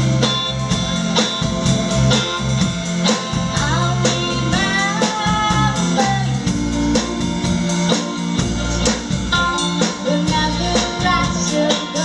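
Live band playing an upbeat song: electric guitar and drums keeping a steady beat, with a sung vocal line over them.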